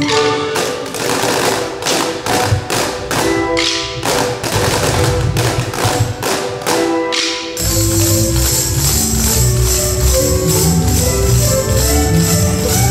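A class of children striking sticks on metal cans together in time, about three strokes a second, over pitched backing music. Partway through, the backing music fills out with a deep bass line.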